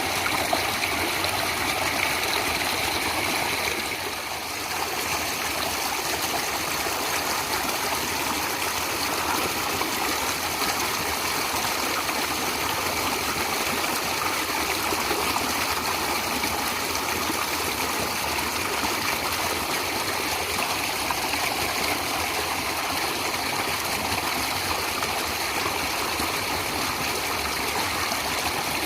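Natural running water, such as a stream, flowing in a steady, even rush with a brief slight dip in level about four seconds in.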